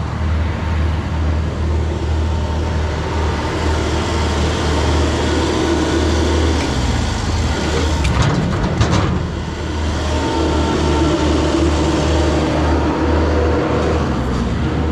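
Large machine engine running steadily with a low, pulsing hum, and a short cluster of sharp cracks or knocks about eight seconds in.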